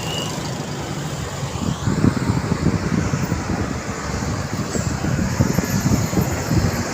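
Road traffic going by, a steady rush of vehicle noise. From about two seconds in, gusty low buffeting of wind on the microphone joins it.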